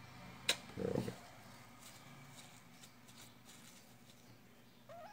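Small handling sounds as a tube of grease and a paper towel are brought to the work surface: a sharp click about half a second in, a brief muffled rustle right after, then faint handling and a short rising squeak near the end.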